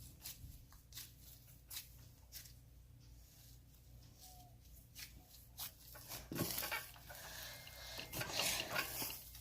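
Cloud slime being handled and squished by hand: faint scattered clicks and pops, then denser, louder crackling squishes over the last three seconds.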